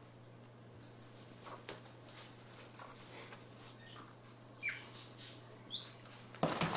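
Capuchin monkey giving short, very high-pitched squeaks: three sharp ones about a second and a quarter apart, each falling in pitch, then a few fainter, lower ones. A brief rustle comes near the end.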